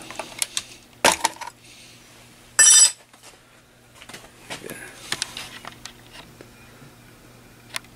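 Small metal clicks and clinks as the desoldered sheet-metal cover of a transceiver's VCO shield can is prised off. A sharp knock comes about a second in, and a brief, louder metallic clatter just before three seconds in.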